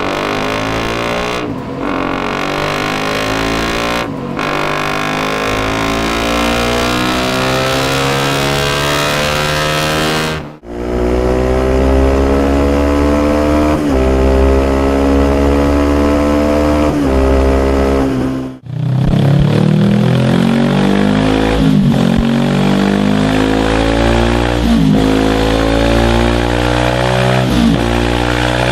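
Honda CBR-series sport motorcycle exhausts in three back-to-back clips, each bike accelerating hard through the gears. The engine note climbs, then drops at each upshift, every few seconds.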